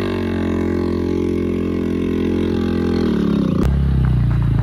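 Motorcycle engine running at steady revs for about three seconds, then its pitch drops. A sharp knock follows, and the engine carries on at a lower pitch.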